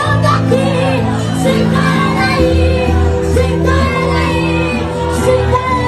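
Music with singing voices over sustained bass notes.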